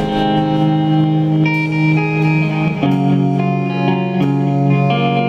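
Electric guitar on a red hollow-body ringing out sustained chords in a live rock song, moving to a new chord about three seconds in.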